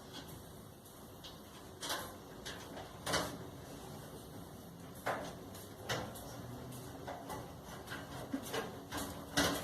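Scattered knocks, clicks and scrapes of hand work on dryer parts, each a second or more apart, the loudest near the end.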